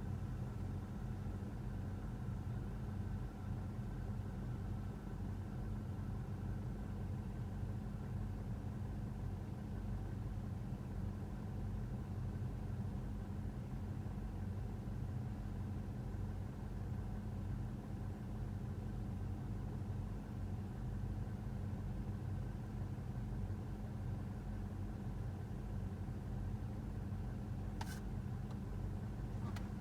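Diesel engine of a 1971 David Brown 990 tractor running steadily with a low, even hum, while baling hay. A single brief click comes near the end.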